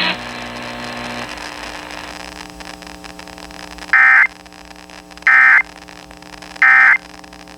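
Emergency Alert System end-of-message code received over radio: three short, loud bursts of data tones about a second apart, marking the end of the EAS test. Low static and hum run underneath.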